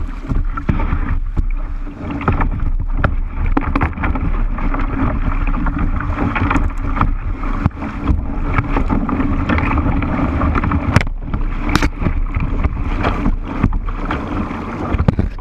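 Rushing river water splashing and churning against a kayak's hull and its bow-mounted camera through a riffle, with wind buffeting the microphone. Two sharp knocks stand out about two-thirds of the way through.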